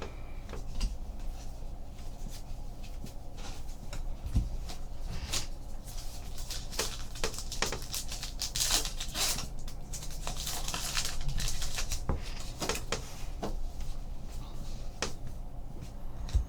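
Trading card packs being opened and the cards flipped through by hand: a run of rustles and light clicks, busiest in the middle.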